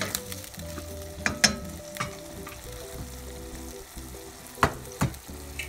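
Ginger, garlic and green-chilli masala paste sizzling in oil in a stainless steel pot while a wooden spatula stirs it, knocking sharply against the pot several times.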